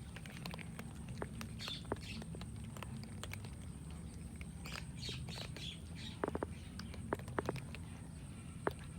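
Faint bird chirps among scattered sharp clicks, over a steady low hum.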